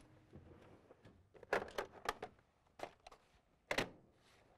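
A few sharp plastic clicks and taps of a VHS cassette being handled on a desk, the loudest near the end.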